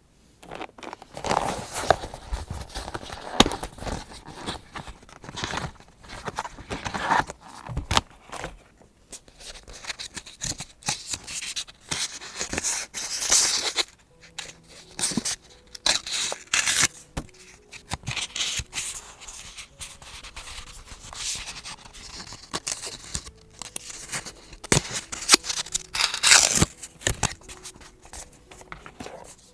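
Paper crafting sounds at close range: scissors cutting through paper, with paper rustling and scraping in irregular strokes.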